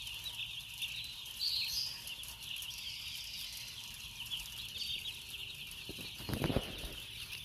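A large flock of young chicks peeping all together in a constant, dense chorus of high chirps. About six seconds in, a low rumble lasting under a second is the loudest sound.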